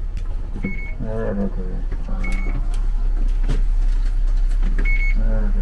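Bus engine idling as a steady low hum inside the cabin, with voices and three short electronic beeps from the fare card reader as passengers pay and get off.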